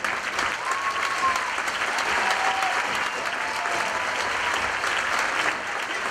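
Audience applause that breaks out suddenly and carries on steadily, with a few short cheers from the crowd over it.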